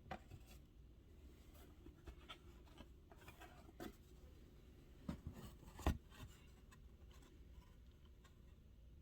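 Faint rustling and light taps of old paper photographs being handled, with a sharper tap a little before six seconds in.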